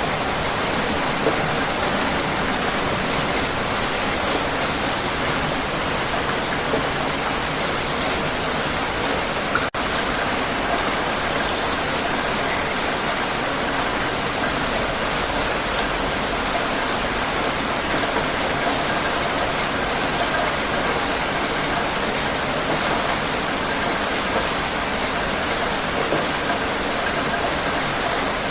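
Heavy rain falling steadily, a dense even hiss of drops with no letup, except for a split-second dip in level about ten seconds in.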